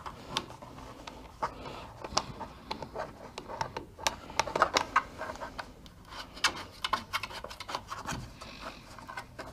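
Hands working a cable pass-through into a 3D-printed PETG plastic enclosure: a scatter of small clicks, taps and plastic rubbing and scraping.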